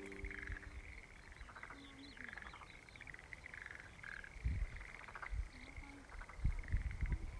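Frogs calling in chorus: a steady high trill with repeated short croaks over it. A few low thumps come in about halfway through and near the end.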